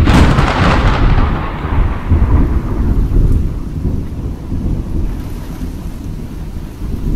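A thunderclap: a sudden sharp crack that trails off into a long low rumble, slowly fading.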